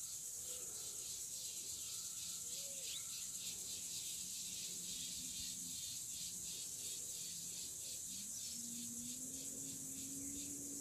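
Insects calling in a steady high hiss, pulsing about three to four times a second. Underneath, a faint low drone rises in pitch about eight seconds in.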